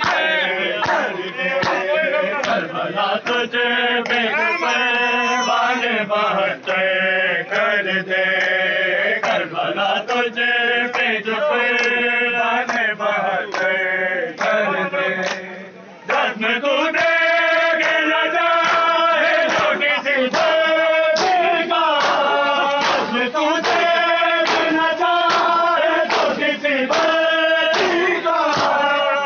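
A crowd of men chanting a nauha in unison, over a steady beat of hand slaps on the chest (matam). The chanting breaks off briefly about halfway through, then starts again.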